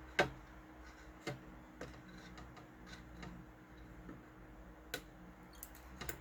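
A few scattered sharp clicks and light taps, the loudest just after the start, from hand tools and a stripped wire being handled during a speaker repair.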